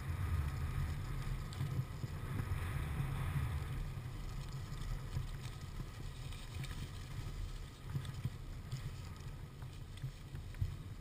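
Yamaha YZ250 dirt bike engine running while the bike is ridden over rough grass, heard as a steady low rumble.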